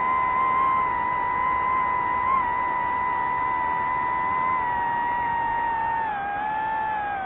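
DJI FPV drone's motors and propellers whining at a steady pitch with a brief blip, then dropping in pitch about six seconds in as the throttle eases.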